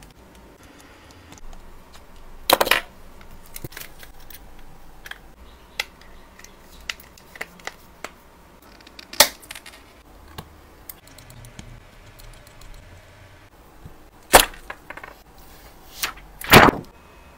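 Long acrylic fingernails tapping and clicking on an iPhone's glass and metal frame while it is handled, a run of light ticks broken by four louder sharp clacks.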